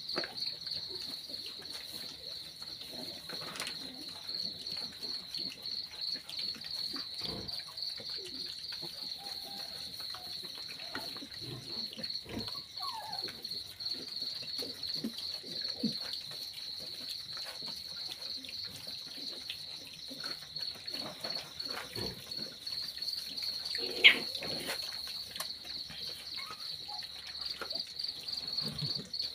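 Crickets chirping in a steady, fast-pulsing high trill, over faint scattered rustles and knocks of piglets rooting and feeding in straw and dirt. Once, late on, a short sharp squeak that falls in pitch stands out as the loudest sound.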